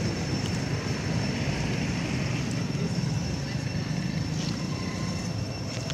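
A steady low rumble of outdoor background noise, with a thin, steady high whine above it.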